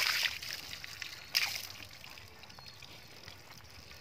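Water thrown from a plastic bucket splashing onto a stone shivling and its polished black stone base, in two splashes, the second about a second and a half in.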